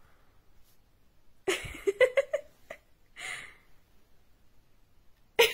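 A person's soft, breathy laughter: a few short giggles about a second and a half in, a breathy exhale a second later, and a sharper laugh starting near the end.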